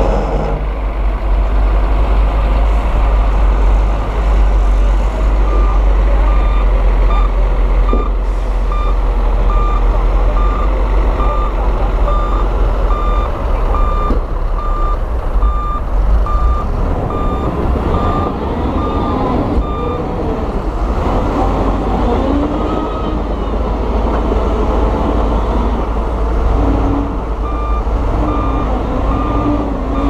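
Heavy diesel earthmoving machinery running with a deep steady rumble, its reversing alarm beeping at a steady pace for much of the time. The beeping stops about two-thirds of the way through and starts again near the end. A wavering whine rises over the engine in the second half.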